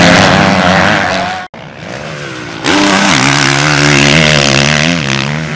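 Motocross dirt bike engines revving on the track. The sound cuts out abruptly about a second and a half in, then a bike's engine comes back loud about a second later, its pitch wavering up and down as the rider works the throttle.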